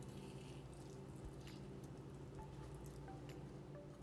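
Faint squishing of a lime wedge squeezed by hand over a bowl of chopped tomato and onion, with a few soft clicks, over a low steady hum.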